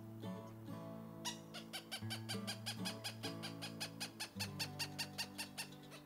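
Cooper's hawk calling a steady series of kek-like barking notes, about five a second, starting about a second in. Background music with sustained low notes plays under it.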